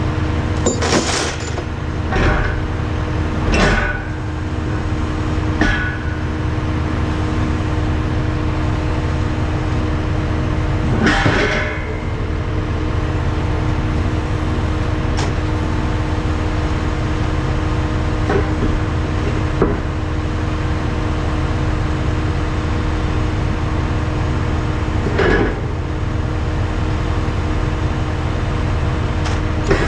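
Heavy diesel equipment engine running steadily, with a few sharp metallic clunks and rattles now and then.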